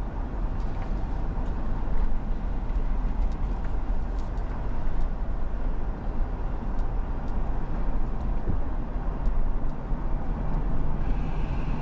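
Steady rumble of a truck's engine and tyres, heard from inside the cab while driving.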